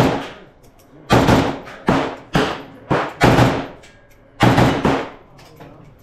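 AK-pattern rifle in 7.62x39mm firing single shots: about eight sharp cracks over the first five seconds, irregularly spaced and some in quick pairs, each trailing off in a short echo.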